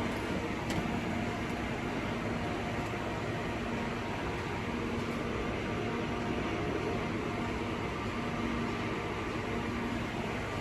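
Steady running noise of machinery, with a low electrical hum that fades in and out.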